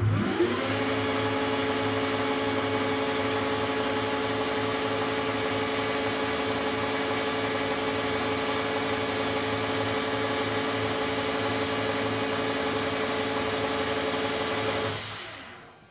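1972 Weiler Matador SV metal lathe starting up, its spindle running at a steady 2400 rpm with a steady hum and whine, then winding down about a second before the end.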